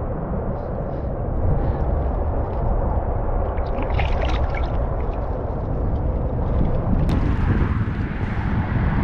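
Wind rumbling steadily on the microphone, with a largemouth bass splashing at the surface about four seconds in as it is let go and kicks away. A single sharp click comes near the end.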